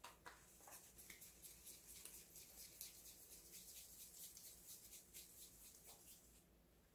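Faint, rapid scratchy rustling of crumbly soboro streusel topping as a dough ball is pressed into it by hand. It stops shortly before the end.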